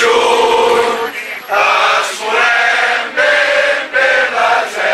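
A crowd of protesters chanting together in unison, in phrases of about a second with held notes and short breaks between them.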